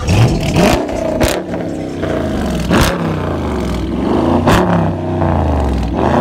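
Dodge muscle car engine revved in repeated blips through its exhaust, the pitch rising and falling about four times, with a few sharp pops among the revs.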